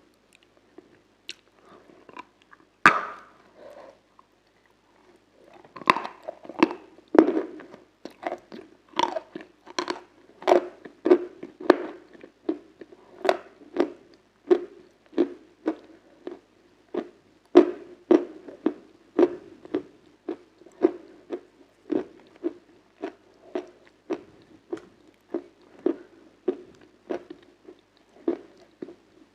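A person biting into crunchy ice cream, one sharp bite about three seconds in, then chewing it with a steady crunch about one and a half times a second.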